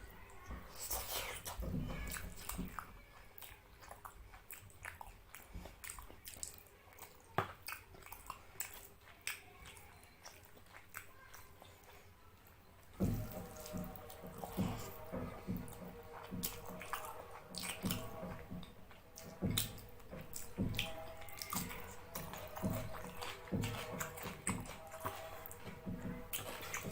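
Close-up wet eating sounds of fish curry and rice eaten by hand: irregular lip smacks, chewing and squelching clicks. About halfway through, a steady background tone joins in.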